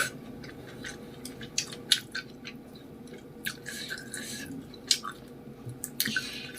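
Close-miked wet chewing and mouth sounds of someone eating spicy noodles with fish balls and vegetables: irregular sharp smacks and clicks.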